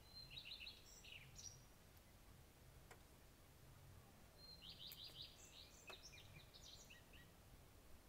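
A songbird singing two short, faint phrases: one about a second long at the start and a longer one from about four and a half to seven seconds in. Each opens with a quick run of repeated notes and ends in varied higher and lower notes. Steady low background noise lies beneath.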